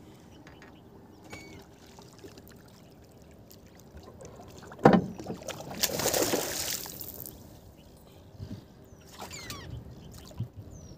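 Water splashing beside a wooden boat as something is thrown in, about six seconds in, just after a single sharp knock. A few faint bird chirps come and go.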